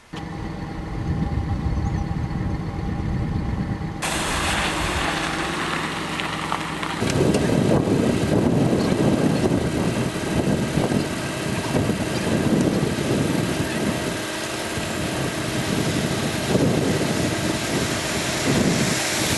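Vehicle engine running with a low hum. About four seconds in, a steady hiss joins it, and from about seven seconds a rough, uneven rumbling noise dominates.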